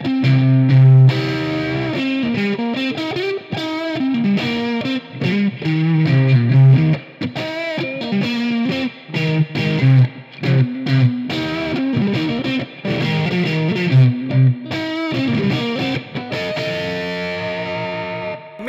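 Squier Made in Japan electric guitar played through an overdriven Marshall AVT amp: a run of melodic lead phrases with string bends and vibrato.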